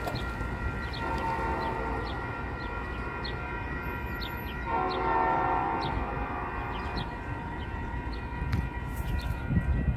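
Distant train horn sounding two blasts: a shorter one about a second in and a longer, louder one about five seconds in.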